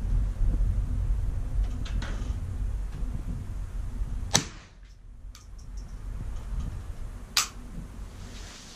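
Two sharp cracks from a Bergara BXR Carbon semi-automatic .22 LR rifle firing, about three seconds apart in the second half, with a fainter crack about two seconds in. Wind rumbles steadily on the microphone underneath.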